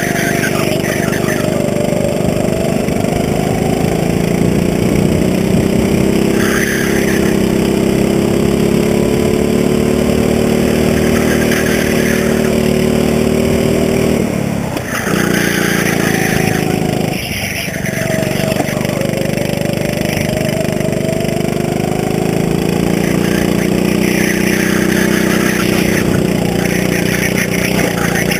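Go-kart engine running hard around a track, its pitch rising and falling with the revs. About halfway through the revs drop sharply twice, a couple of seconds apart, then climb again.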